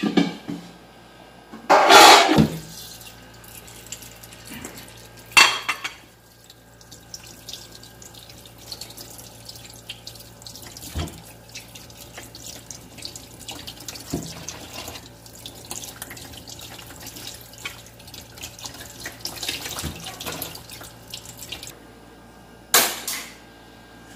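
Kitchen tap water running over raw chicken drumsticks as they are rinsed by hand in a steel sink, with small splashes and knocks. A loud clatter comes about two seconds in, a sharp knock a few seconds later, and another loud knock near the end.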